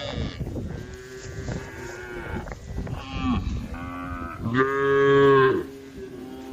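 Cows mooing, a string of calls one after another, some overlapping, with the loudest and longest moo lasting about a second, starting about four and a half seconds in.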